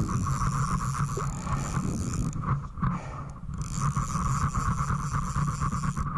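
Fly reel's click drag ratcheting rapidly as a hooked fish is played on a bent fly rod. The ticking stops for about a second midway and then starts again.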